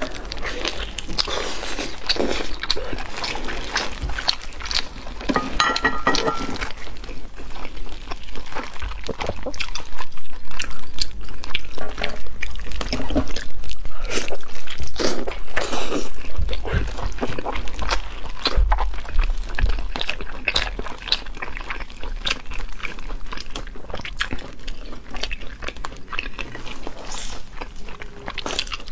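Close-miked eating: biting into and chewing sticky red-braised pork, with wet smacking and squishing mouth sounds. It gets louder for a stretch in the middle.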